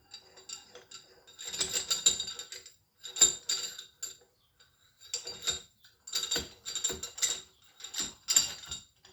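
Steel vise parts clicking and clanking in about five short bursts with a metallic ring, as the vise's movable jaw and its Acme-threaded screw are worked loose and pulled out.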